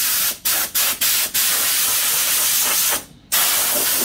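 Compressed-air blow gun blowing leaves and debris out of a radiator: a loud hiss, cut off briefly four times in the first second and a half as the trigger is let go, and again for a moment about three seconds in.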